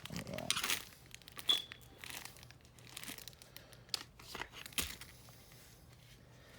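Handling noise as a pistol is brought out and handled: crinkling and rustling with scattered light clicks and knocks, busiest in the first second or so, then only a few sparse ticks.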